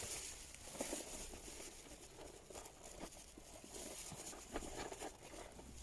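Faint, irregular crunching and crackling of snow, a run of small crisp crunches.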